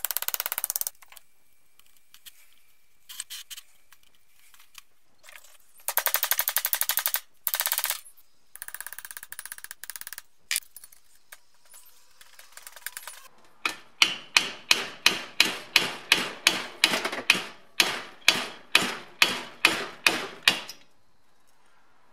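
Steel hammer blows on a long flat bar levering an old oil seal out of a BMW E30 differential housing: about fifteen sharp metallic strikes at roughly two a second in the second half, each ringing briefly. Earlier come short bursts of rapid metallic rattling as the seal is worked loose.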